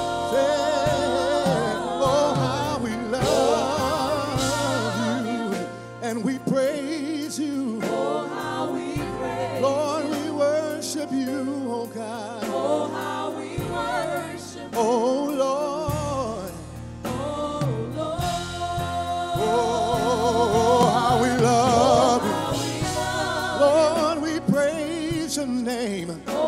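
Gospel worship singing: a male lead voice with backing singers over instrumental accompaniment, a slow song with held, wavering notes.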